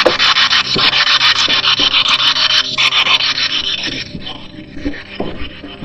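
Spirit box sweeping through radio stations: loud static chopped into rapid, even pulses by the fast channel changes. It fades and thins out about four seconds in.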